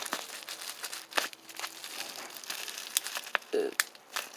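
Clear plastic wrapping crinkling and crackling in irregular bursts as it is handled and pulled open by hand.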